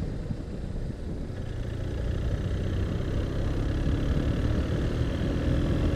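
BMW R1200RT's boxer-twin engine running on the move, mixed with wind and road rush, growing gradually louder.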